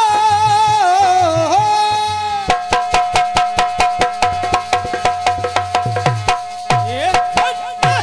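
A man's voice holds and bends a sung note over a harmonium for about two seconds. Then a fast, loud hand-drum pattern comes in, about four to five strokes a second over a steady held harmonium note, with deep bass strokes that slide in pitch near the end.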